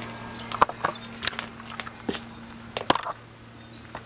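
Irregular footsteps and sharp knocks on concrete and dry leaves, about a dozen over four seconds, over a steady low hum.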